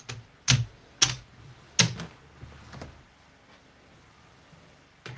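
Clay casino chips clacking against each other as bets are placed and stacked on a craps layout. There are four sharp clacks in the first two seconds, a few fainter ones after, and one more near the end.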